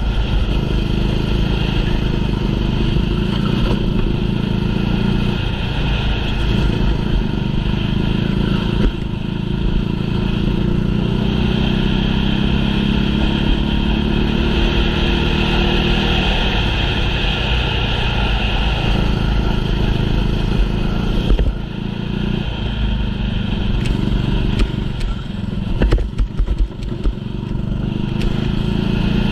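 Small racing engine running hard through a race, its pitch rising and falling as the vehicle speeds up and slows. There is a short drop about two-thirds of the way in, and a few sharp knocks near the end.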